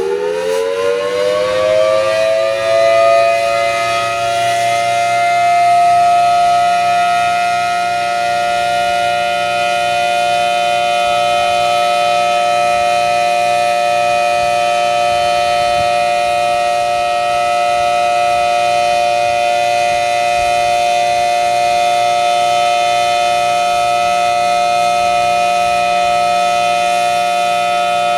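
Federal Signal Thunderbolt 1000T outdoor warning siren finishing its wind-up, the pitch rising and levelling off within the first few seconds, then holding one steady, loud tone during its monthly test.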